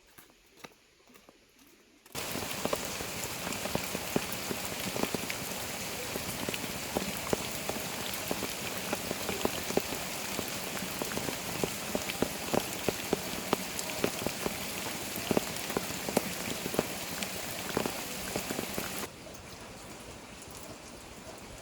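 Heavy rain falling on a surface, a dense hiss dotted with many separate drop impacts. It starts abruptly about two seconds in, and near the end it drops suddenly to a softer, steady patter.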